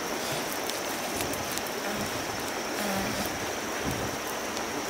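Steady rushing of a shallow stream mixed with the scattered crackles of a wood campfire grilling a fish, with a thin steady high whine over it.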